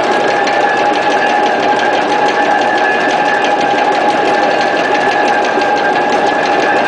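Electric motor running steadily at constant speed: a steady whine over a fast, fine rattle.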